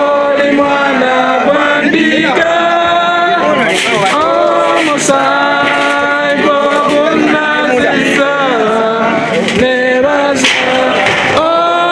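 A group of voices singing together, with long held notes.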